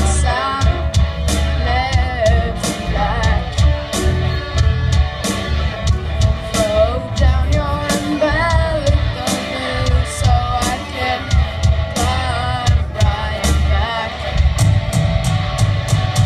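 Young rock band playing live: a boy's singing over electric guitars, bass guitar and keyboard, with drums keeping a steady beat.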